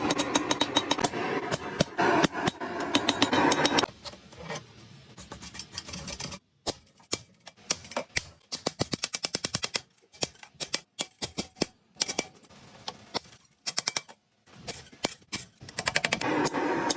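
Hammer striking steel during knife forging, in quick runs of sharp blows with short breaks between them. For about the first four seconds the blows come very fast over a dense rushing noise.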